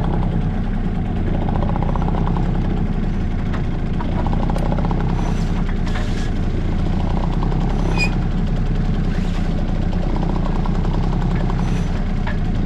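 Small outboard motor on a sailboat's stern running steadily at low throttle, with a few light clicks around the middle.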